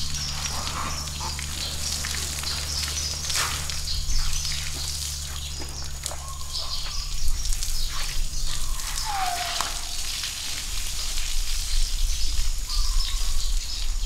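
Outdoor rural ambience: birds chirping, a steady low hum, and scattered light crackles and knocks. A short falling call comes about nine seconds in.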